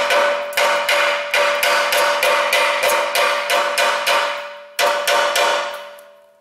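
Rapid hammer blows on the rusted exhaust pipe flange, about four a second, with the steel pipe ringing after each. They stop after one last blow about five seconds in.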